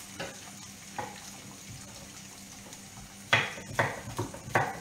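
Kitchen knife chopping zucchini on a wooden cutting board: a few light taps, then about three seconds in, four firm chops about two a second. A soft steady sizzle from the soffritto frying in the pan lies underneath.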